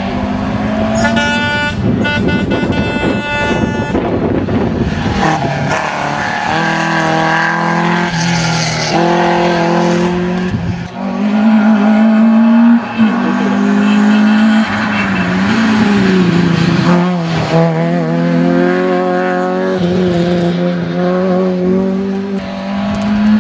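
Rally car engines revved hard through a tight bend, one car after another, the engine note climbing and dropping with each gear change and lift.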